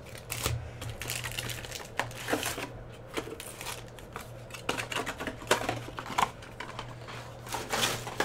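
Cardboard trading-card hobby box and foil card packs being handled: scattered taps, clicks and crinkles as the packs are pulled out and stacked.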